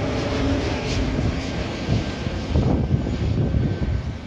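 Airbus A320neo's turbofan engines droning overhead as the airliner flies its approach with the landing gear down: a steady rumble carrying a held tone at first, turning gustier after about two seconds.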